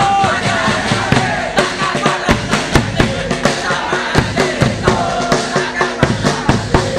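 Football supporters singing and chanting together over a steady drumbeat of about two to three beats a second.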